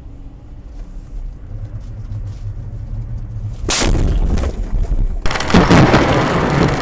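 Dashcam recording of a road crash: the low rumble of a moving vehicle, then a sudden loud bang of impact about halfway in, followed from about five seconds in by loud, rough crackling noise.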